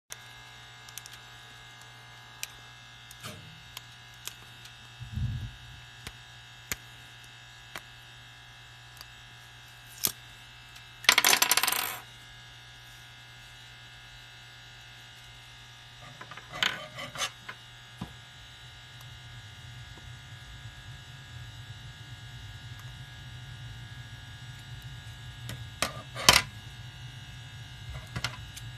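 Small hard objects clicking and clattering, with one loud rattling clatter about eleven seconds in and shorter clatters later. A low steady hum sets in after about eighteen seconds.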